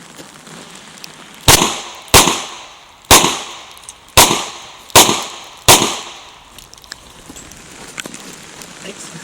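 Six handgun shots from a .40-calibre Chiappa Rhino revolver, fired at an uneven pace over about four seconds. Each is a sharp crack with a short echoing tail.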